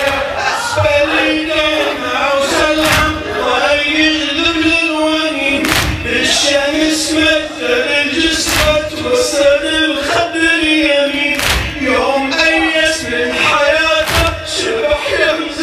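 Men's voices chanting a Shia Muharram lament (latmiya) together, with sharp slaps at uneven intervals: the mourners' chest-beating (latm).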